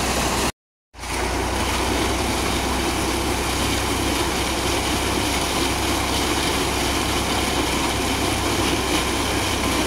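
Heavy stream of water gushing from a tubewell outlet pipe into a concrete tank, over the steady hum of the tractor engine driving the pump. The sound cuts out for about half a second near the start, then runs on unchanged.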